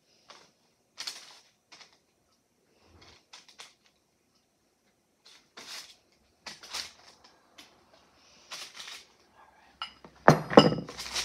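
Scattered light rustles and clicks of kitchen handling at the counter, then a sudden loud clatter of several knocks about ten seconds in.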